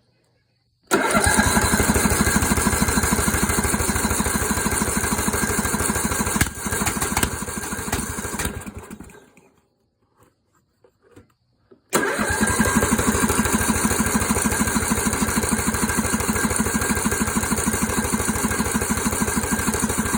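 Riding mower's 14 hp Briggs & Stratton engine being cranked by its electric starter, a fast even chugging, in two tries: one of about eight seconds and, after a pause, another that starts near twelve seconds. It does not start; the owner then finds the flywheel key sheared again.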